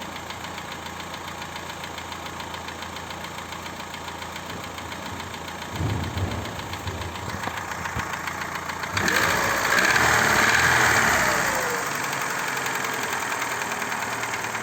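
Daewoo Lanos 1.5 four-cylinder petrol engine running with a steady rhythmic knock. It gets markedly louder about nine seconds in and eases back about three seconds later. The knock was first taken for the hydraulic lifters but proved to be a piston knocking in a worn cylinder bore.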